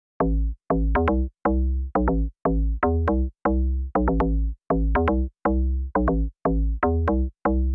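Electronic music with a drum-machine beat: short bass-heavy stabs about twice a second, each cut off by a brief silence.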